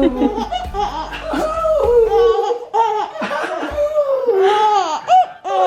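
Two-month-old baby laughing and cooing in a run of high-pitched squeals that rise and fall.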